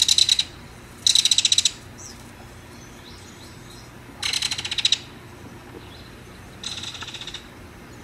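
Belted kingfisher giving its rattle call four times, each rattle a rapid run of notes lasting under a second. The last rattle is fainter.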